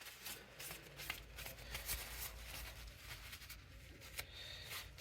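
Grease being wiped off a printer part by hand: a run of quick, irregular rubbing and rustling strokes.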